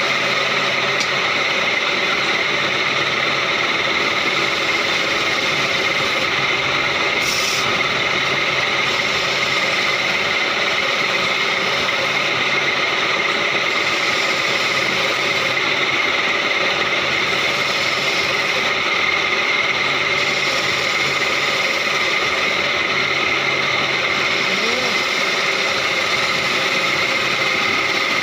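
Wood lathe running steadily while a hand-held turning chisel scrapes and cuts a spinning wooden furniture leg, with a steady motor whine under the cutting noise.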